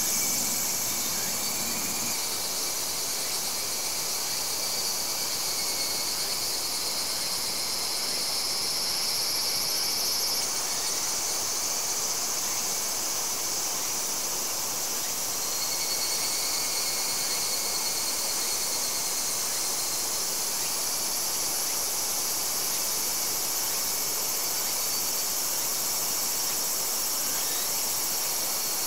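Steady chorus of insects chirring, several high-pitched layers overlapping. One of the highest layers drops away about ten seconds in.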